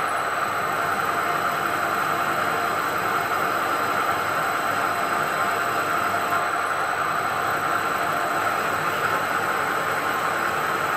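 CNC milling machine spindle running steadily while a twist drill cuts into the induction-hardened steel bedway of a Harrison M300 lathe; an even, unchanging rushing sound with a faint high whine over it.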